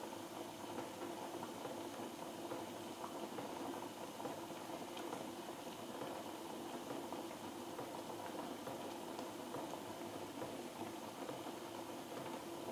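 Water spinach soup at a rolling boil in a small aluminium pot: a steady bubbling with small scattered pops, the vegetables cooking until tender.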